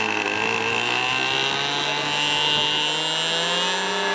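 Small engine of a Hangar 9 Cessna radio-controlled model airplane running at high throttle on its takeoff roll, with a steady, buzzing note whose pitch drifts up slightly.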